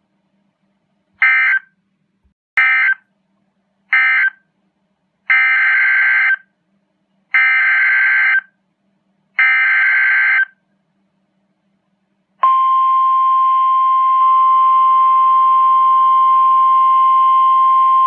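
NOAA Weather Radio SAME data bursts: three short buzzy bursts, the end-of-message code closing one warning, then three longer bursts of about a second each, the coded header of the next Severe Thunderstorm Warning. About twelve seconds in, the steady 1050 Hz weather alert tone starts and holds.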